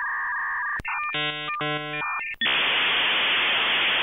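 Dial-up modem handshake: steady beeping tones, then about a second in two short bursts of chirping tones. From about two and a half seconds a loud, steady hiss follows as the modems connect.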